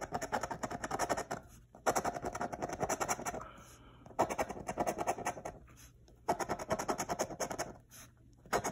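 A coin scratching the coating off a scratch-off lottery ticket in quick back-and-forth strokes. The strokes come in about five bursts of a second or so, with brief pauses between.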